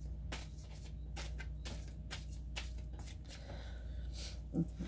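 Tarot cards being shuffled and handled: a run of short, irregular flicks and taps over a steady low hum.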